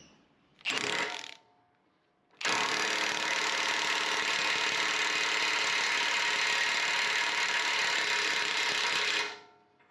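Impact wrench hammering on the nut of a 1-inch fine-thread all-thread puller, trying to draw a bushing into its bore: a short burst about a second in, then a steady run of about seven seconds that stops sharply.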